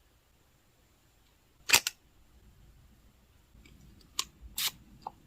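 Sharp clicks from handling cosmetic packaging: a loud double click about two seconds in, then three lighter clicks near the end.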